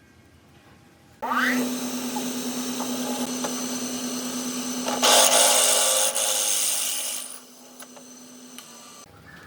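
Handheld electric power tool starting up with a brief rising whine, running with a steady motor hum and working the material hardest from about five to seven seconds in, then running down and stopping near the end.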